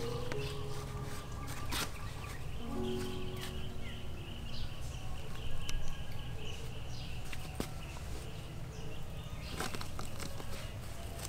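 Hands and a small digging tool working soil in woven plastic sacks while planting seedlings: scattered scrapes, rustles and a few sharp clicks. Behind them run a steady high drone and a low outdoor rumble.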